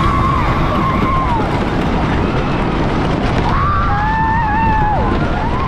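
Wind rushing over the microphone on a moving amusement ride at speed, with riders letting out long drawn-out yells twice, at the start and again about three and a half seconds in.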